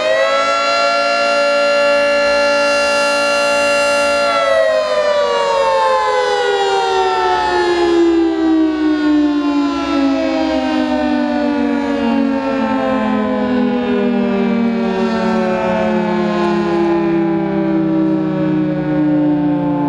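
Federal Signal 3T22 three-tone outdoor warning siren sounding its attack signal. Its chord rises at the start and holds steady for about four seconds, then winds slowly down in pitch for the rest of the time.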